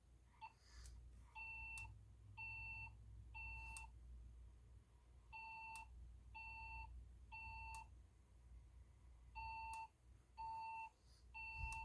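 Fire alarm speaker strobe sounding the temporal-three evacuation tone of a Siemens voice evacuation message: three half-second beeps, a pause, then the same again, three rounds in all. The beeps are faint.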